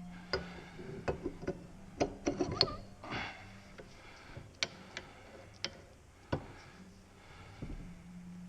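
Irregular sharp metallic clicks and taps of steel arbor-press parts being handled and fitted: the lever arm and its ratchet going on, with a cluster of clicks about two seconds in and single ones after.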